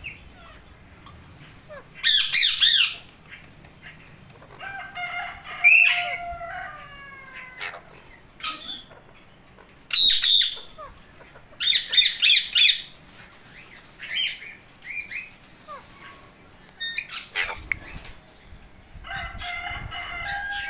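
Male Alexandrine parakeet talking and squawking in short bursts of pitched, gliding chatter. The loudest bursts come about two, ten and twelve seconds in.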